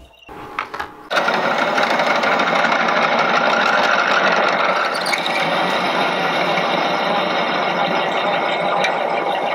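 Metal lathe running while a high-speed steel twist drill cuts into a spinning titanium Damascus blank: a steady, even machining noise that comes in suddenly about a second in.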